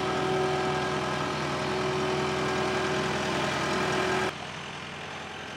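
Skid steer's engine running steadily, a hum with a steady whine over it; about four seconds in the sound drops suddenly to a quieter level and carries on.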